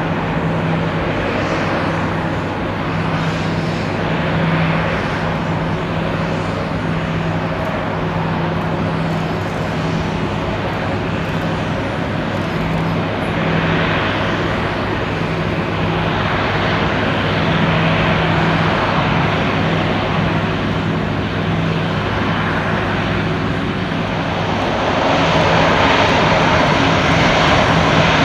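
Antonov An-70's four Progress D-27 propfan engines running as the aircraft taxis, their counter-rotating propellers (eight blades in front, six behind) giving a steady low hum under a rushing noise. It grows a little louder near the end.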